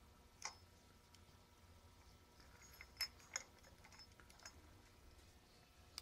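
A handful of faint metal clicks and clinks from a valve spring compressor and valve keepers being worked on an engine cylinder head, the loudest two close together about three seconds in.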